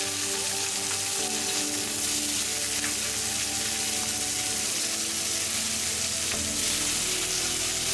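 Boned chicken legs sizzling steadily on a dry cast-iron grill pan, searing over high heat without oil.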